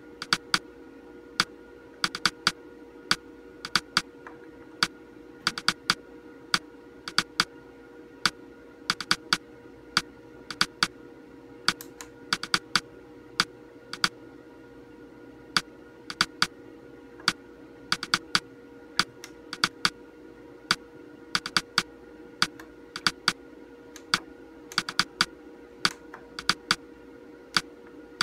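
Monitor front-panel menu buttons clicking, pressed again and again in quick pairs with short pauses, each press stepping the on-screen colour settings. A steady hum runs underneath.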